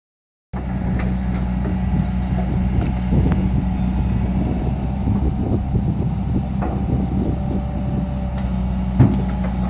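Heavy diesel engine running steadily, with scattered metal knocks and clanks and one louder clank about nine seconds in.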